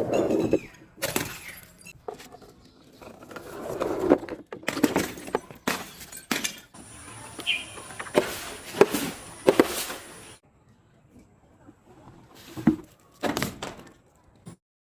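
Objects being smashed and crushed: a series of sharp cracks and crunches, with a quieter pause about two-thirds of the way through.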